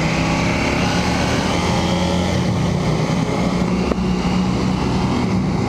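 2018 KTM 790 Duke's parallel-twin engine running at low revs through its stock exhaust. Its note rises slightly about a second in, then holds steady.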